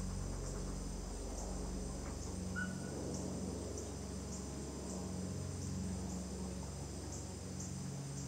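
Crickets chirping, a steady high trill with short pulses recurring about once or twice a second, over a low steady hum.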